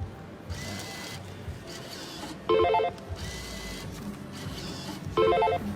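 Lightning Cash Tiki Fire slot machine playing its electronic spin sounds: a short, loud chiming jingle twice, about three seconds apart, with fainter beeps between, over casino background hum.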